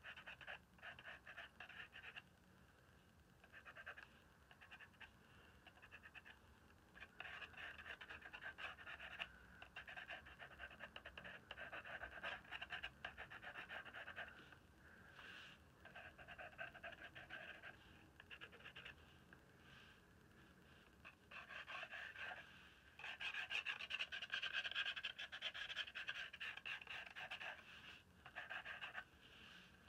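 Thick charcoal pencil scratching across a gessoed, ink-sprayed journal page in on-and-off runs of short strokes. A longer, louder run of strokes comes a little over two-thirds in.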